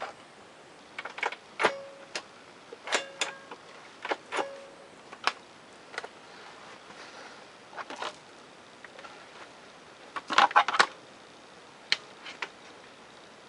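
Irregular sharp clicks, knocks and rattles of hard objects being handled, with a dense clatter about ten seconds in; a few of the taps ring briefly.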